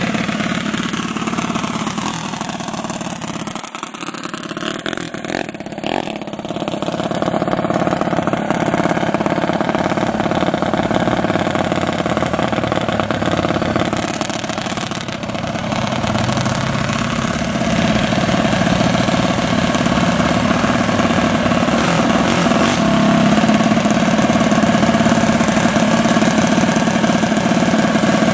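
Loud drag-racing car engines running: a sweep in pitch over the first few seconds, then a steady idling drone that grows a little louder past the middle.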